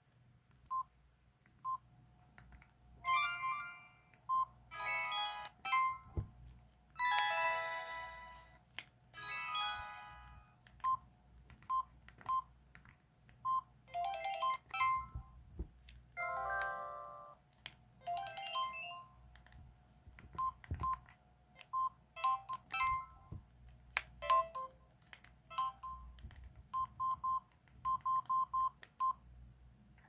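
Samsung SGH-T219 flip phone playing a series of short electronic jingles of its built-in flip and power tones, each one to two seconds long. Short single key beeps sound between them as the keypad's menu keys are pressed.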